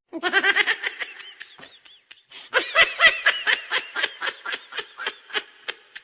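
High-pitched laughter sound effect: rapid bursts of giggling at about three or four a second, which ease off briefly around two seconds in and then pick up again.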